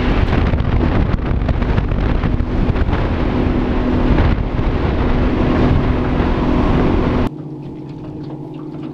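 Small aluminium fishing boat running at speed: outboard motor drone with a steady low tone under loud wind rushing over the microphone. About seven seconds in it cuts off suddenly to a much quieter steady hum.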